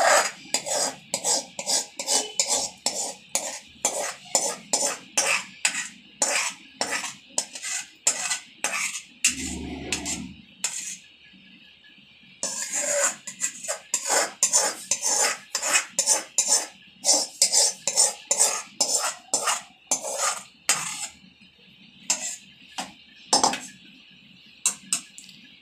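Hand-cranked rotary egg beater whipping cream in a steel pot, its metal beaters clattering against the pot in a fast, even rhythm of about two to three strokes a second. The beating pauses briefly about halfway through and thins out near the end.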